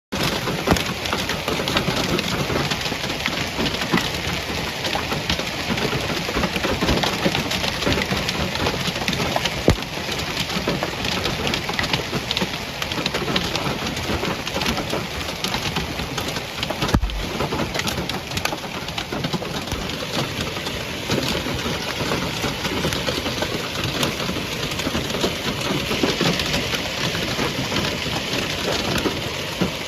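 Heavy hail falling: a dense, continuous patter of hailstones striking surfaces, with many sharper individual hits.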